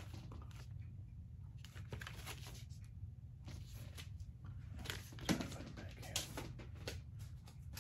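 Rustling and light knocks of LP record jackets and paper inner sleeves being handled and set down, with one louder knock about five seconds in, over a steady low hum.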